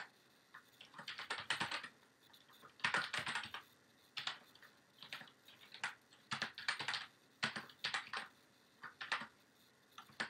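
Typing on a computer keyboard: quick runs of keystrokes in several short bursts, with brief pauses between them.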